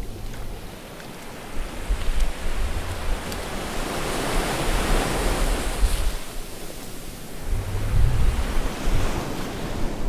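Ocean surf: a steady wash of waves that swells to a peak about halfway through and falls back, with gusts of wind rumbling on the microphone.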